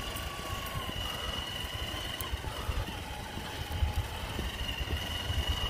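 Electric RC crawler truck driving along a dirt trail, its motor and gears giving a steady high whine. Low rumble on the microphone, growing louder near the end.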